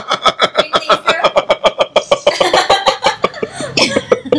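A man and a woman laughing together, a quick run of repeated ha-ha pulses that goes on throughout.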